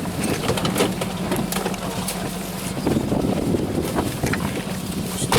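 Van engine running steadily, with wind noise and scattered clicks and knocks, then a loud thump near the end.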